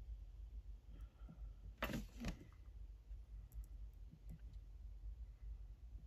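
Quiet room with a few small clicks and taps of hand tools being handled while soldering, two louder clicks close together about two seconds in.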